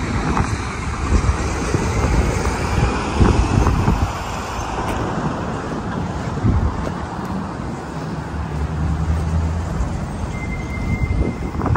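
Road traffic noise from vehicles on a wide city street, a dense low rumble, with a steady engine hum from about eight to ten seconds in.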